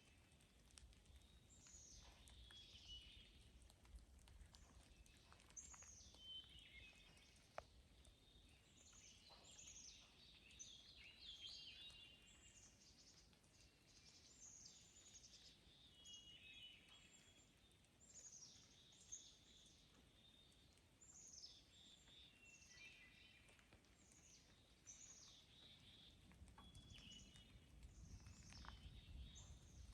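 Birds calling again and again in short, high notes that fall in pitch, some broken into quick trills, heard faintly. A low rumble grows near the end.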